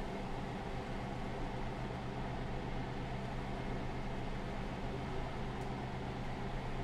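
Hot peanut oil frying in an electric deep fryer: a steady, even hiss with a low hum underneath.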